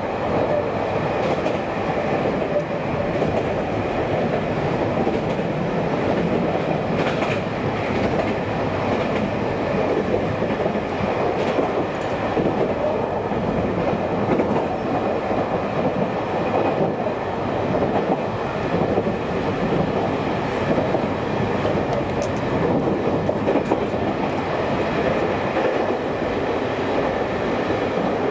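Local train running at speed, heard from inside the carriage: a steady rumble of wheels on rail, with a few faint clicks over rail joints.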